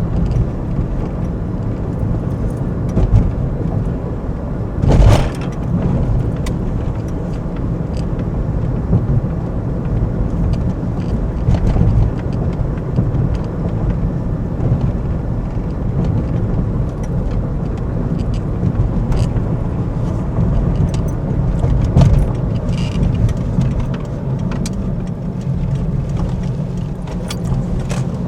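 Car in motion, its steady engine and road rumble heard from inside the cabin, with small rattles and a single thump about five seconds in.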